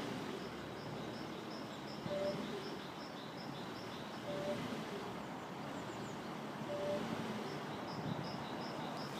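Car engine running, with the throttle pressed three times. Each press brings a brief steady whistle, a fault the owner thinks may be the first sign of a clogging crankcase oil trap. A fast series of high chirps, about three a second, is heard near the start and again near the end.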